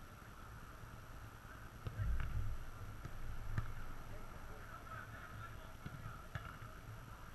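Open-air ambience of a five-a-side football game: distant players' calls over a steady background hiss, with a few short sharp knocks such as ball strikes. A low rumble swells about two seconds in.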